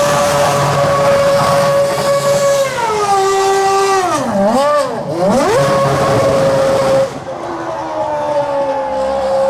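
Formula 1 car engine running at high revs. About three seconds in, the revs fall and dip twice, then climb back to a steady high note. About seven seconds in, the sound becomes quieter.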